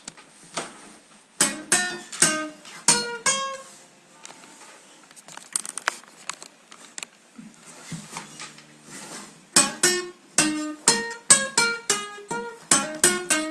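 Acoustic guitar played by hand: a quick run of single picked notes, a quieter stretch with a few soft low notes, then another run of picked notes near the end.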